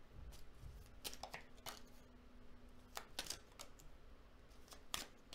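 Faint snaps and slides of tarot cards being dealt one at a time onto a wooden board, a handful of short soft clicks spaced irregularly a second or so apart.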